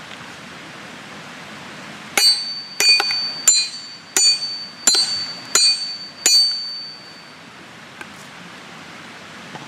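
Seven ringing metal-on-metal blows, about two-thirds of a second apart, driving a split into a wild cherry log, over a steady hiss.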